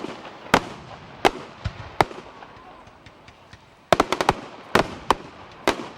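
Fireworks display: aerial shells bursting in a string of sharp bangs about half a second to a second apart, with a rapid volley of about five cracks about four seconds in.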